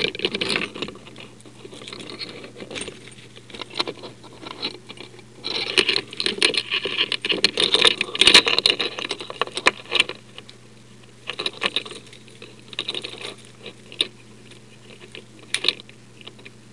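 A warded pick, a master key with its sides filed down, scraping, rattling and clicking inside the keyway of an old Yale warded lock as it is worked to open it: metal on metal in irregular bursts, busiest in the middle, with sharp clicks now and then.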